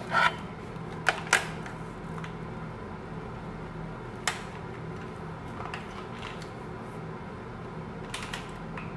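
Steady whirring hum of a small fan motor, with several sharp handling clicks and knocks: a few in the first second and a half, one about four seconds in, and two near the end.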